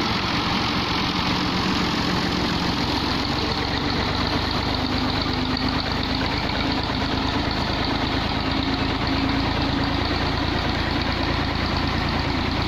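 Massey Ferguson MF240 tractor's three-cylinder diesel engine running steadily, with a fast even chugging and slight shifts in engine pitch.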